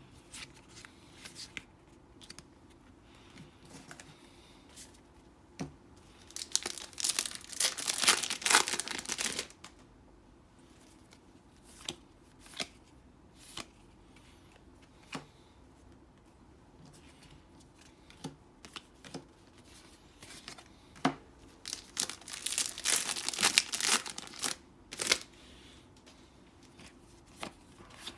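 Trading card booster pack wrappers being torn open and crinkled, in two bouts, one about seven seconds in and one about twenty-one seconds in, with light rustles and clicks of handling between them.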